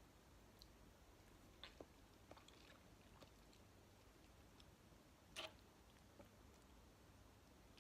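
Faint chewing of soft jelly candy: sparse soft mouth clicks, with a slightly louder one about five seconds in.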